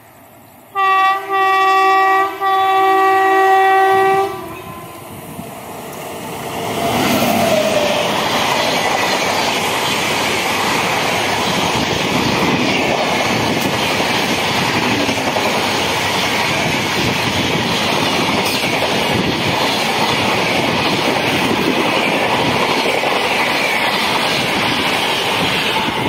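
Train horn sounding three blasts close together, a short one and then two longer ones. About six seconds in, an express passenger train's coaches begin passing at speed, and the loud, steady noise of wheels on rails runs on from there.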